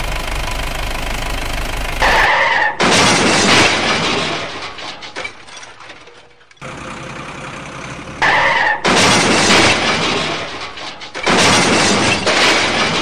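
Dubbed vehicle sound effects over toy trucks: a steady truck engine running, then a brief shrill tone and a loud crash with breaking and clattering that fades over a couple of seconds. The tone and crash come again about eight seconds in, and another crash follows near the end.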